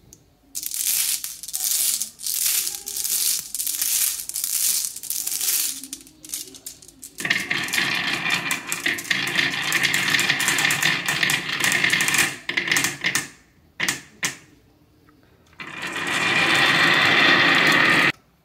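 Glass marbles rolling and clattering down the winding groove of a wooden HABA marble slope: short bursts of rattling at first, then two longer runs of dense clicking as many marbles roll down together.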